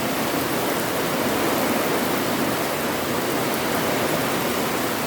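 Heavy summer rain pouring down in a steady, even hiss.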